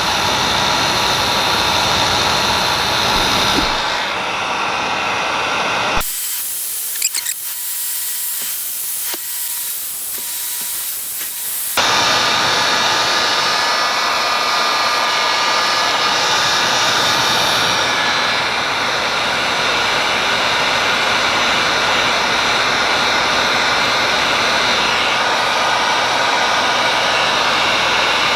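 Electric heat gun blowing steadily with a fan whine while it heats a solder-seal heat-shrink wire connector. About six seconds in, its sound thins to a high hiss for about six seconds, then the full blowing returns.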